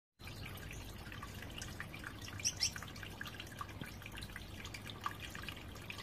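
Gouldian finches giving scattered short, high chirps, with two louder ones close together about two and a half seconds in, over a faint low hum.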